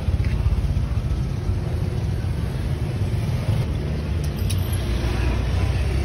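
Steady low rumble of motor vehicle traffic, with no pauses.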